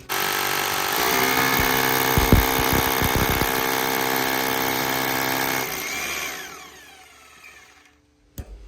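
Power drill motor starting abruptly and running at a steady whine for about six seconds, with a few heavy knocks partway through. Near the end the trigger is released and the motor winds down, its pitch falling as it fades.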